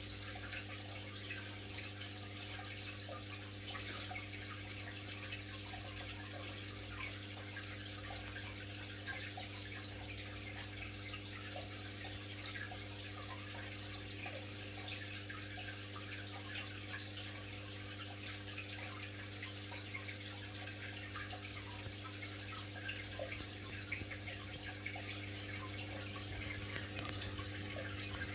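Aquarium water trickling and bubbling with fine crackling, over a steady low electrical hum from the tank's running equipment.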